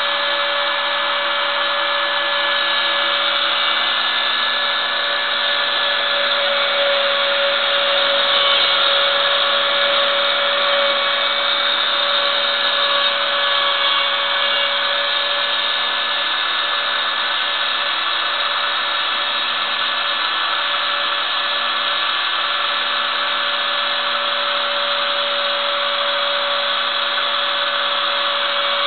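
Ooznest Ox CNC router's spindle running steadily at speed while its small bit carves letters into a wooden plaque: a constant high whine over the cutting noise.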